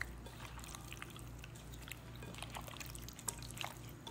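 Gloved hands squeezing and kneading raw chicken wings in a wet marinade: faint, irregular wet squelches and smacks.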